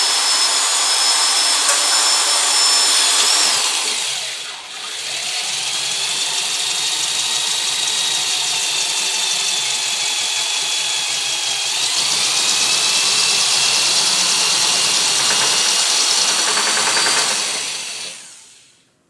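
Corded electric drill boring 3/4-inch holes through 1-inch PVC pipe, its motor whining steadily. The whine sags and winds back up about four and a half seconds in, rises in pitch again around twelve seconds, and runs down to a stop near the end.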